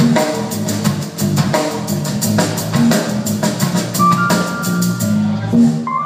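Live band playing a song: a drum kit keeps a steady beat with cymbals under electric bass, acoustic guitar and keyboard, with a falling run of higher notes near the end.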